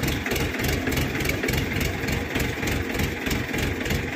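Heavy diesel engine running steadily with a low, even throb.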